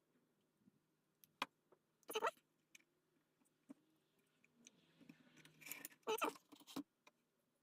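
Light clicks and taps of small plywood kit parts being handled and set in place, a single click about a second in, a short clatter of knocks about two seconds in and another, louder, around six seconds in.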